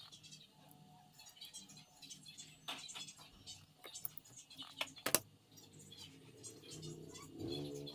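Scattered light clicks and taps from handling a smartphone and its small parts during repair, a few of them sharper. Guitar music comes in near the end.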